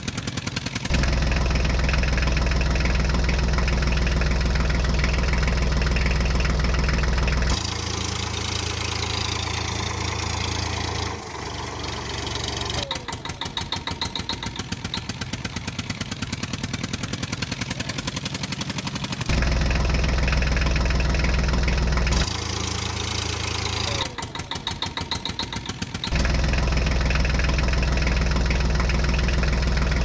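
Tractor engine running and idling with a knocking beat. It switches abruptly several times between a deep, steady drone and a quicker, evenly spaced rattle.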